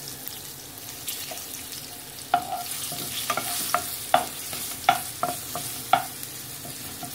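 Green chilies and curry leaves sizzling in hot oil in a non-stick kadai, with a spatula stirring them and knocking against the pan about eight times from about two seconds in.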